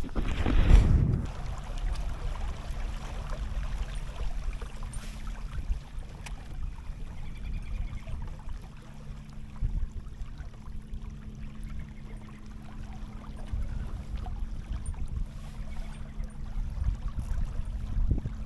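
Water moving and gurgling around a kayak hull, with a low rumble and a thin steady hum underneath. A loud knock or splash comes in the first second.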